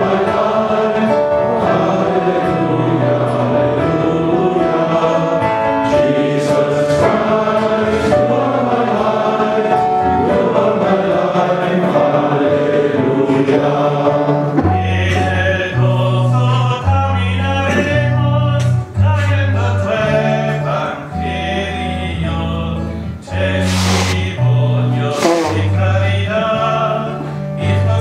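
A choir of voices singing a hymn with instrumental accompaniment. About halfway through, deep bass notes come in under the singing, changing about once a second.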